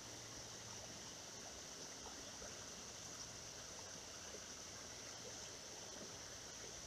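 Faint, steady trickle of a shallow creek running over stones, with a thin, steady high-pitched hum over it.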